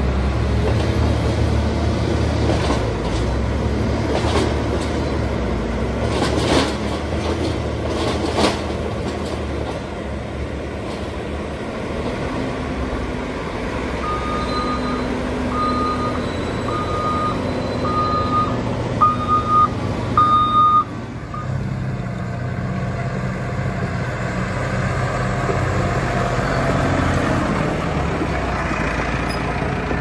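Diesel engine of a JCB wheel loader running hard while it pushes silage up the pit, with a few clunks in the first ten seconds. From about halfway a reversing alarm beeps about once a second, seven times, getting louder, then cuts off. After that a different engine hums steadily at a lower pitch.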